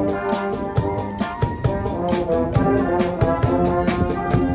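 Brass band playing: trumpets, trombones and sousaphones hold notes over a drum kit's steady beat.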